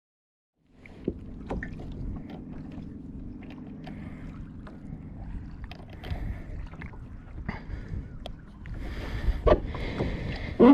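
Water slapping and gurgling against a plastic kayak hull, with small knocks from gear on the boat; the sound starts abruptly just under a second in and gets splashier near the end.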